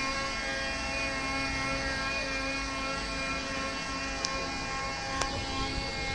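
Engine and hydraulic drive of the Grand Éléphant walking machine running steadily as it moves: a low rumble with a steady whine of several held tones above it. Two sharp clicks come about four and five seconds in.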